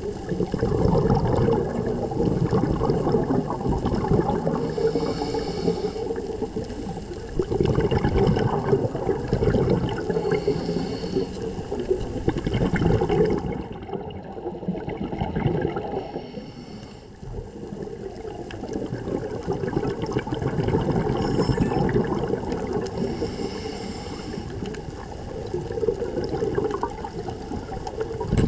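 Scuba diver breathing through a regulator underwater: exhaled bubbles gurgling in swells every few seconds, with short hissing inhalations between, and one longer pause about halfway through.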